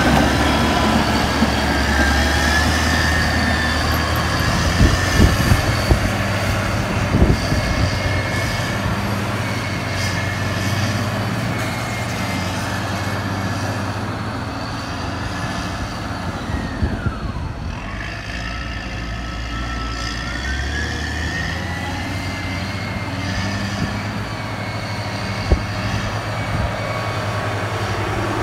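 Caterpillar 120M motor grader's diesel engine running steadily under load as the grader scrapes and clears the road bed, with scattered knocks of stones and debris early on. A high whine dips in pitch and rises again about halfway through.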